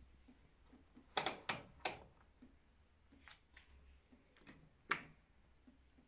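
Sharp plastic clicks from the controls of a Luxor WM 1042 washing machine being set: three close together about a second in, two fainter ones, and a louder single click near the end.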